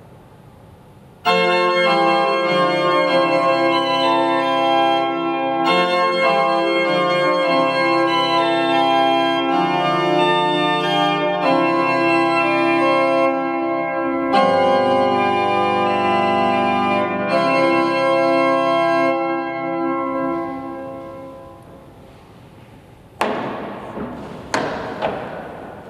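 Small historic pipe organ (built by Hans Schlackwein, case of 1625) playing a chordal piece, with a deeper bass note added for a few seconds in the middle. The music stops and dies away in the church's echo. Near the end come several wooden knocks and clunks as the organ's stop knobs are pulled and pushed.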